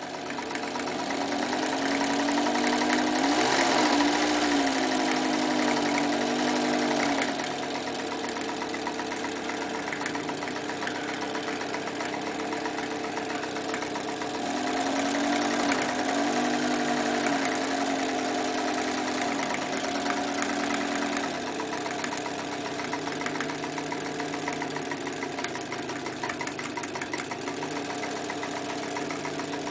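Elna Lotus SP electric sewing machine stitching through thick layers of denim, its motor hum and rapid needle strokes running throughout. It speeds up for a few seconds near the start and again about halfway through, then settles to a slower, steadier pace.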